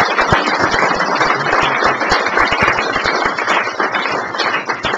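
Small audience applauding, a dense patter of hand claps.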